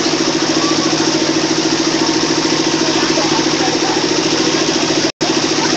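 An engine running steadily close by with a rapid, even pulse. The sound drops out completely for an instant near the end.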